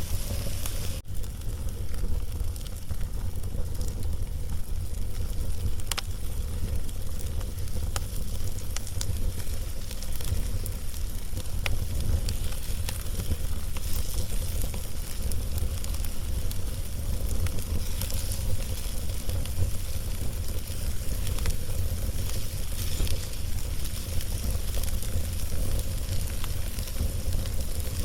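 Log fire crackling, with scattered sharp pops over a steady hiss and a low rumble.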